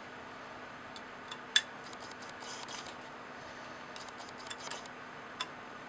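Light clicks and taps from handling a Checkline DID-4A digital torque screwdriver and fitting a hex bit into its bit holder. Two sharper clicks stand out, the louder about a second and a half in and another near the end.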